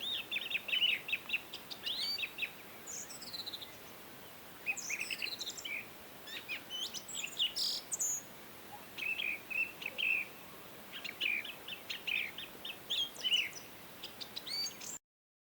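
Songbirds chirping and trilling: quick runs of short notes and falling whistled sweeps, overlapping throughout. The sound cuts off abruptly near the end.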